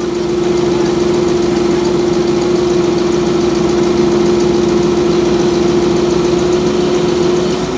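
Crane engine running steadily as a steady drone with one strong, unwavering tone, while the crane holds a lifted steel roof truss on slings.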